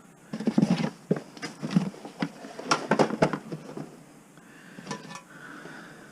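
Irregular knocks, clicks and clatter of household clutter being handled and shifted, busiest in the first three seconds and then thinning out.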